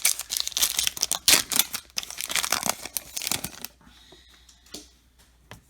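Trading card pack wrapper being torn open and crinkled by hand for about three and a half seconds, then only a few faint clicks of handling.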